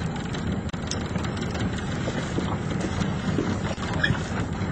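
Small outboard-powered fishing boat running on a river: a steady engine drone mixed with water and wind noise on the microphone.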